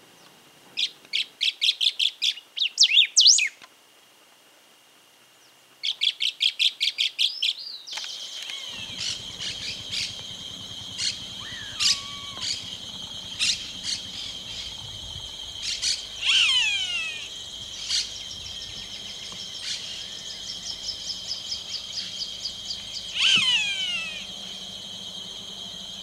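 Roadside hawk (taguató) calling: a fast series of high, sharp notes, repeated a few seconds later, then short repeated notes and two long screams that fall steeply in pitch, over a steady high buzz.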